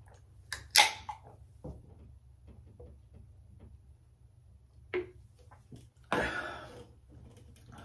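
Busch beer can punctured for shotgunning: a sharp pop and hiss of escaping gas about a second in, then a knock, then a quieter stretch while it is drunk. A sharp click near five seconds, then a loud breathy exhale.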